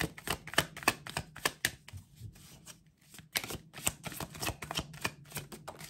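A deck of tarot cards shuffled by hand: quick runs of cards slapping and flicking against each other. There is a brief pause about two seconds in, then the shuffling starts again.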